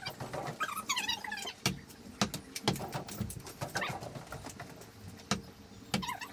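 Animal calls that slide up and down in pitch, mixed with scattered sharp clicks or knocks.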